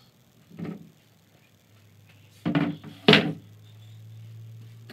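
Three knocks: a soft one about half a second in, then two loud sharp ones about half a second apart. A low steady hum comes in behind them.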